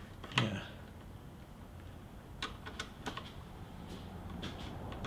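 Faint, scattered clicks of a small screwdriver working a screw out of a snowmobile handguard mount, with a run of four quick clicks about two and a half seconds in.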